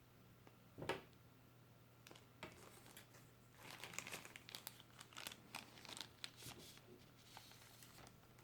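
Faint crinkling and rustling of keyboard packaging being handled, in a dense run over a few seconds, after a single sharp knock about a second in.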